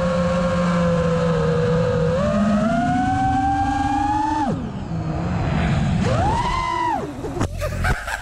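iFlight Nazgul5 5-inch FPV quadcopter's motors and propellers whining, recorded on the onboard camera. The pitch steps up about two seconds in, drops away abruptly midway, then surges up and falls again. Near the end come a few sharp knocks as the drone crashes.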